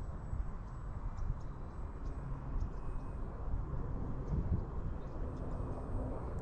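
Wind rumbling on the microphone outdoors, a steady low buffeting noise with a few faint ticks.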